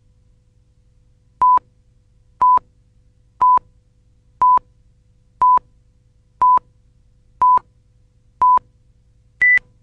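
Video countdown leader beeps: eight short identical tone beeps, one each second, then a final beep at a higher pitch, counting down to the start of the programme.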